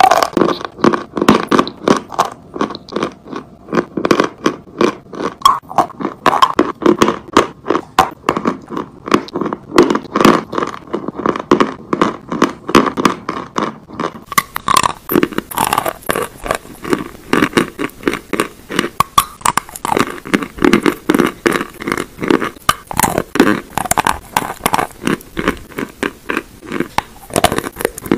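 Close-miked biting and chewing of wet chalk, a rapid run of crisp crunches and scrapes, several a second, which grow brighter and crisper about halfway through.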